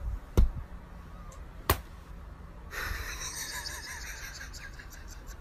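Two sharp taps about a second apart over quiet room tone. About halfway, a faint high hiss with soft chirps comes in.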